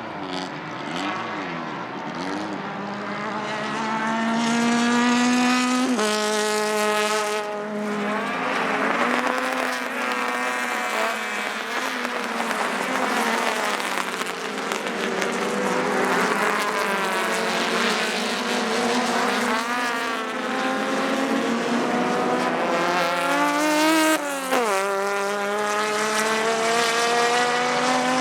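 Race car engines at full throttle as several cars pass, their pitch climbing and then dropping sharply at an upshift about six seconds in and again near the end. In between, several engines overlap, rising and falling in pitch as they go by.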